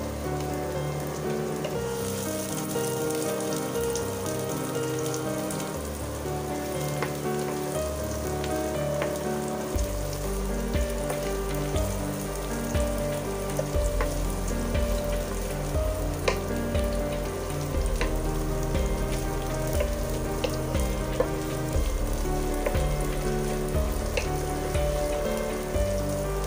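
Sliced onions sizzling as they fry in oil in a nonstick pan, with scattered light knocks from a wooden spatula stirring them. Background music plays under it, with a bass line coming in about ten seconds in.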